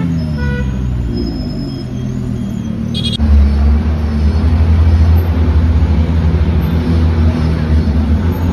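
A Lamborghini Huracán's V10 engine note drops in pitch as the car slows in traffic. About three seconds in, the sound cuts to a Ferrari 458 Italia's V8 running at low speed with a deep, steady rumble.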